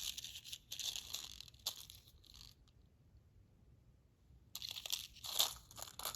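Crinkling and rustling of small packets of cake decorations being handled and shaken out, in two spells with a quiet gap between.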